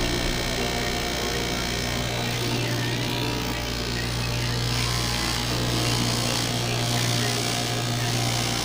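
Electric straight-knife cloth cutting machine running steadily, its motor humming with the blade going up and down as it is guided through a stack of layered fabric.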